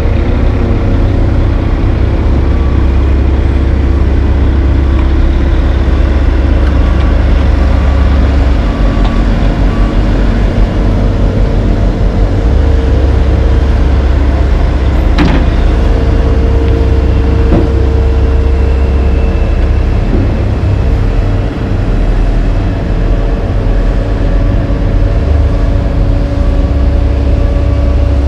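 Heavy diesel paving equipment running: dump truck, asphalt paver and roller engines give a loud, steady low rumble. A backup alarm beeps at times near the start and end, and there is one sharp knock about halfway through.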